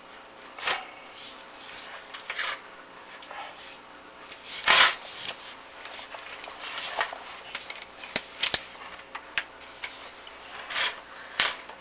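Chimney inspection camera and its push cable rubbing and scraping against the flue walls as it is fed down, with irregular scrapes and sharp clicks; the loudest scrape comes about five seconds in.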